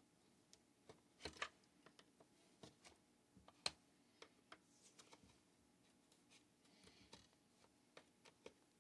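Scattered light clicks and knocks of a chainsaw's plastic handle housing being worked by hand into place on the saw, mostly quiet between them; the sharpest knock comes a little over a third of the way through.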